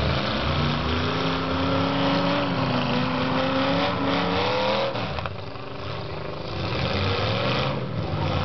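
Demolition derby cars' engines revving hard together. One engine climbs slowly in pitch over the first five seconds, then the noise dips for about a second and a half before building again.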